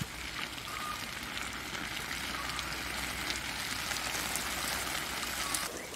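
Water spraying from a garden hose and falling like rain onto tomato plants, a steady hiss and patter on the leaves as the dry vegetable patch is watered.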